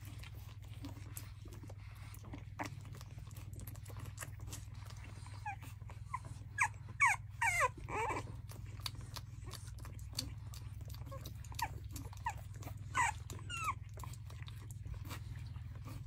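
Blue French bulldog puppies squeaking and whimpering in short high-pitched cries, a cluster of them in the middle and a couple more near the end. Under them come small wet clicks of a puppy mouthing and sucking on a finger, over a steady low hum.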